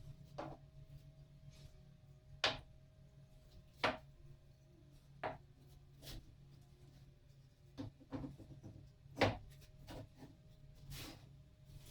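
Scattered light knocks and taps of wood being handled, irregular and a second or two apart, over a faint steady hum.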